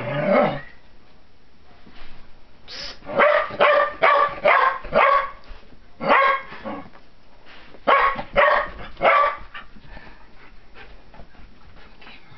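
A dog barking in clusters of short barks with pauses between them, going quiet for the last couple of seconds.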